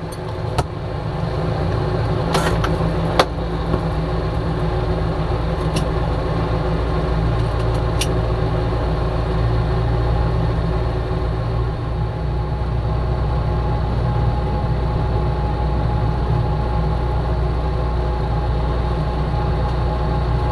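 Small single-engine light airplane's engine and propeller running steadily at taxi power, heard from inside the cockpit as a loud, even drone that builds over the first couple of seconds. A few sharp clicks stand out early on.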